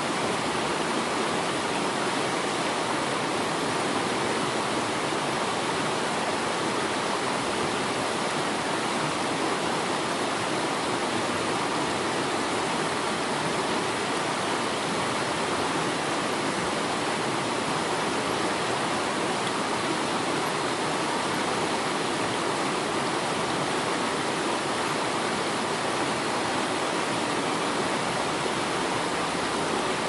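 Steady rushing water of a waterfall, an even, unbroken wash of noise.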